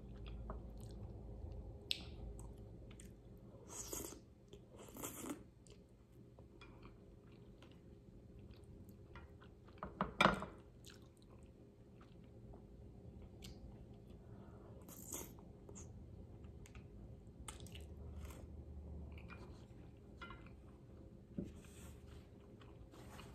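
Close-miked chewing of Samyang Carbo fire noodles, with scattered small clicks and a few louder mouth sounds about four, five and ten seconds in.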